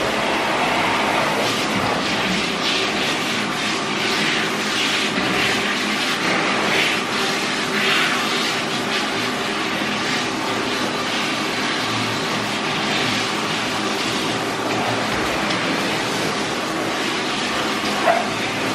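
Water spraying from a handheld bath sprayer onto a dog's wet coat and the stainless steel tub: a steady rushing hiss with a constant hum underneath.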